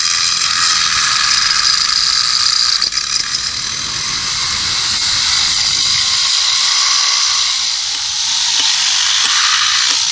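Power tools grinding marble: a loud, steady high-pitched whine with hiss from the stone being ground, shifting about three seconds in as the work changes.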